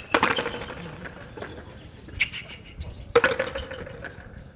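Paleta rally: the ball cracking off wooden paddles and the court's concrete walls, three sharp hits (the first right at the start, a weaker one about two seconds in, and a loud one about three seconds in), each with a short ring, and fainter knocks between.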